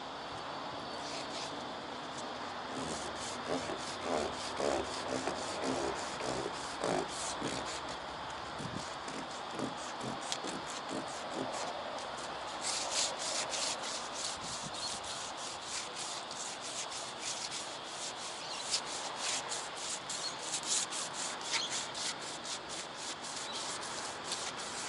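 Hand sanding of a Toyota Coaster bus's painted metal roof: sandpaper rubbing in repeated back-and-forth strokes. The strokes come quicker and sharper from about halfway through.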